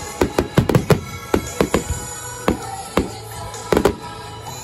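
Aerial firework shells bursting in a rapid, uneven string of sharp bangs, bunched in clusters, with music playing underneath.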